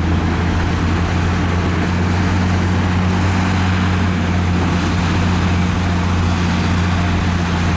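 Scania dump truck's diesel engine running at a steady speed as the truck tips its load of dirt with the body raised.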